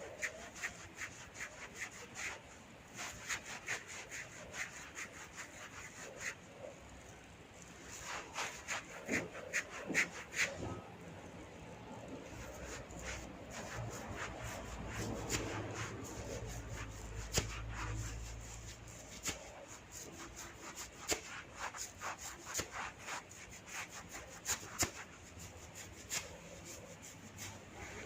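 Hands rubbing and scratching through hair on the scalp during a head massage: a run of short, quick rubbing strokes, with a low rumble of handling in the middle.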